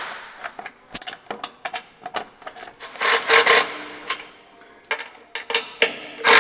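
Hands working with tools and wiring: a run of sharp clicks and short scraping rubs, with a louder cluster about three seconds in and again at the end.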